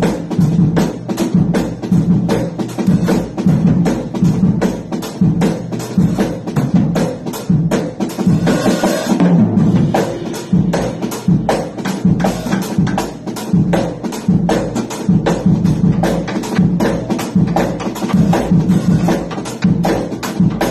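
Free-improvised drumming on a drum kit and a hand-struck standing drum, with dense, irregular strikes several times a second.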